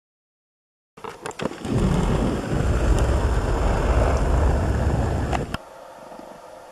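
Loud, uneven low rumbling on the camera's microphone, with a few clicks at its start, dropping suddenly to a faint steady hiss about five and a half seconds in.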